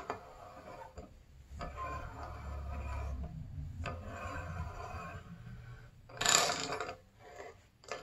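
A bearing retainer nut being screwed by hand into the hub of a Honda CRF250R rear wheel, a rubbing, scraping sound lasting a few seconds. It is followed about six seconds in by a short, loud metallic clatter as a socket and ratchet are brought onto the nut.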